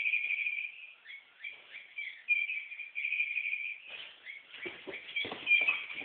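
Recorded birdsong from a tweeting stuffed toy bird: repeated chirps and short trills. Soft knocks and rustling join in over the last second and a half.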